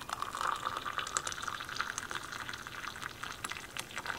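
Hot water poured in a thin, steady stream from a gooseneck kettle into a mug over tea bags.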